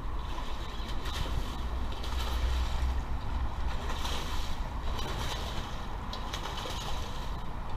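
Wind noise on the microphone over a steady low rumble, with a brief splash in the water about four seconds in.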